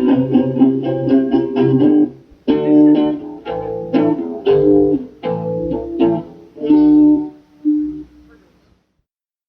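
Guitar playing chords without singing, struck about twice a second, with the last chords dying away and the playing stopping near the end.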